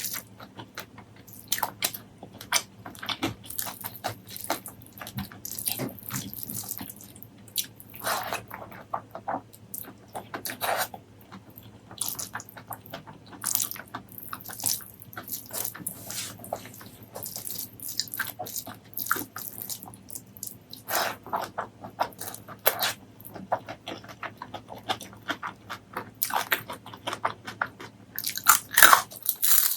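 Close-miked eating: a person biting and chewing crunchy food, with short, sharp crunches coming irregularly and a few louder bites near the end.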